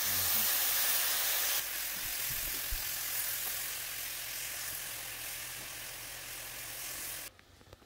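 Gravy base of beef pan drippings and flour sizzling in a hot skillet as it is stirred and browned. The sizzle eases a little after about a second and a half, fades slowly, and cuts off suddenly near the end.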